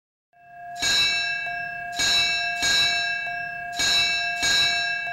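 A large bell ringing, about five strikes starting almost a second in, in uneven pairs, each stroke still ringing as the next one lands.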